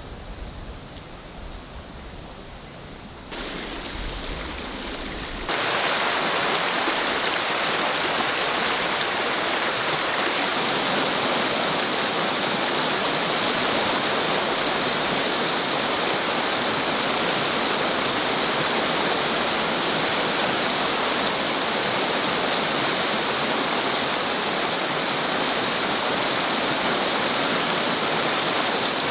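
Small stream of water flowing steadily over rocks, a constant rushing sound. It gets louder about three seconds in and louder again about five seconds in, then holds steady.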